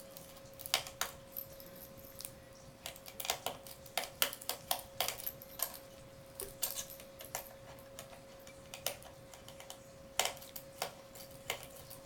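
Irregular small clicks and taps of a screwdriver and fingers on the plastic underside of a Dell Inspiron 1720 laptop while the single memory-cover screw is undone. A faint steady hum runs underneath.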